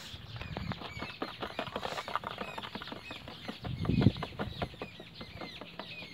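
Birds chirping again and again, over a dense run of short clicks and rustles, with a low thump about four seconds in.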